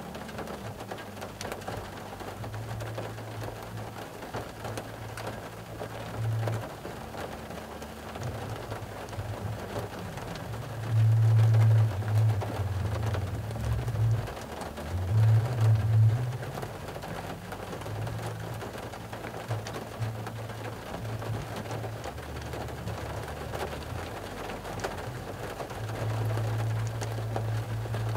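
Rain falling on a car's roof and windows, heard from inside the car as a steady patter. A low droning hum comes and goes underneath, loudest about halfway through.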